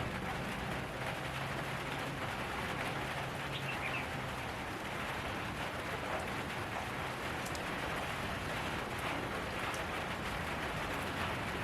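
Steady rain falling, an even hiss with a few sharper drop ticks, and a faint low hum in the first couple of seconds.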